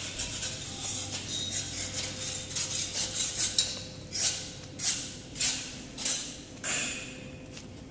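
Footsteps scuffing on a concrete floor, five steps about half a second apart in the second half, with lighter clinks and rustles before them.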